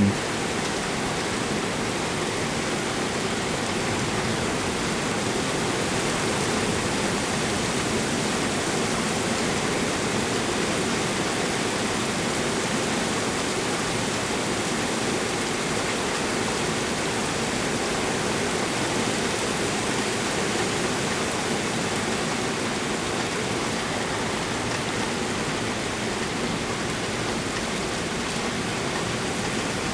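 Heavy rain falling steadily in a torrential downpour, a constant even hiss.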